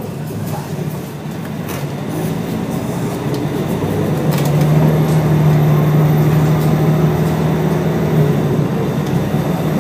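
Scania L113CRL bus's rear-mounted Scania DSC1171 11-litre turbo diesel six running under load. It grows louder over the first four to five seconds, then holds a steady low drone.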